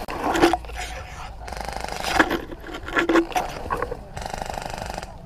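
Rustling and scraping of leaves and branches against the player's gear and rifle, with footsteps, while pushing through thick undergrowth, in several loud irregular bursts.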